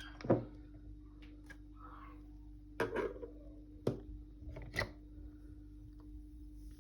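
Four sharp knocks and clicks, the first the loudest, over a faint steady hum.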